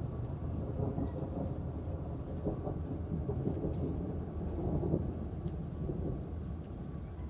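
Rolling thunder rumbling low and continuously, with rain falling; the rumble eases a little near the end.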